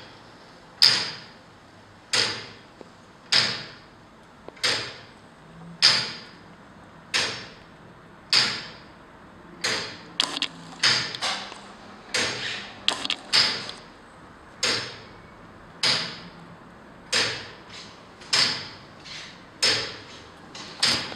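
Large tower clock movement ticking: a sharp metallic tick about every one and a quarter seconds, each ringing briefly, with a few extra quicker clicks near the middle.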